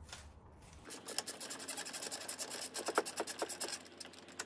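Small socket ratchet clicking rapidly as it winds out a 10 mm bolt on an automatic gearbox's oil pan. The clicking starts about a second in.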